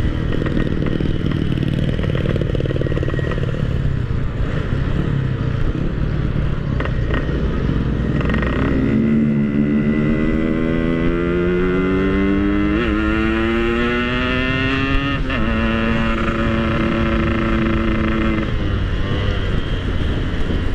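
Yamaha RX-King two-stroke motorcycle engine under way: at first mostly wind and road noise, then from about eight seconds in the engine note climbs steadily as it accelerates, with two short breaks at gear changes, holds steady, and drops off near the end as the throttle closes.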